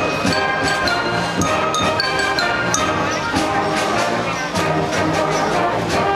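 High school concert band playing live, with held brass chords and short accented notes over a steady beat.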